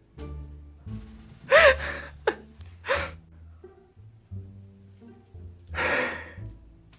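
Background music with a steady low line. Over it a kitten gives three short meows, rising and falling in pitch, in the first half, and there is one breathy burst near the end.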